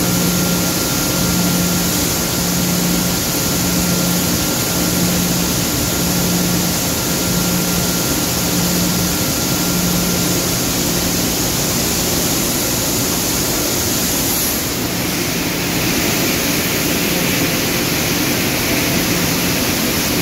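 Coffee threshing mill's machinery and dust-extraction fans running: a loud, steady industrial roar with a low hum that pulses about once a second, and a thin whistle that fades out about halfway through.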